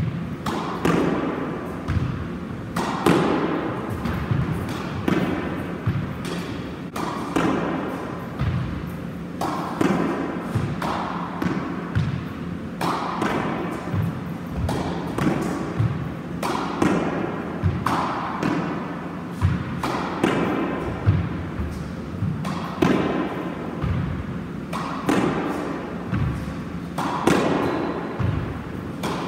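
Squash ball hit again and again with a racket against the front wall, a sharp hit roughly every second, each one echoing around the walled court.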